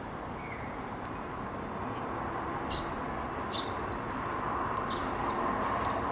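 Small backyard songbirds giving short, high chirps, about five from a little over halfway in, over a steady background hum.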